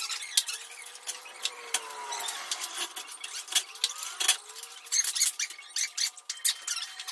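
Irregular light metallic clicks and clinks of tools and door hardware being handled, with a few brief squeaks that fall in pitch.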